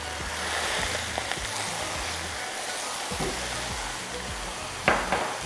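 Steady sizzling from a pot of rice on a gas hob as saffron-butter water is poured over it onto the hot oil and potato slices at the base. There is a sharp knock near the end.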